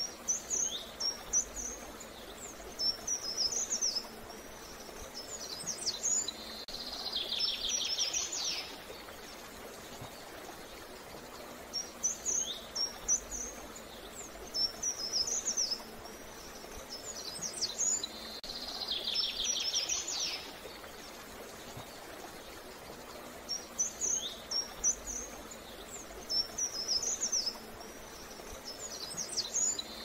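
A songbird singing the same phrase over and over, about every six seconds: a run of quick high chirps that ends in a rapid buzzy trill. A faint steady hiss lies underneath.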